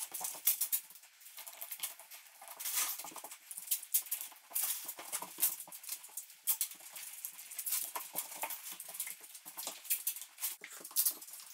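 Dogs' claws clicking and tapping irregularly on a bare subfloor as the dogs walk about.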